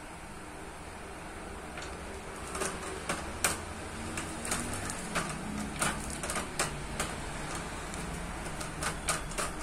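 Irregular clicks and knocks of bicycle gear parts and tools being handled during a repair, starting about two seconds in, over a low steady hum.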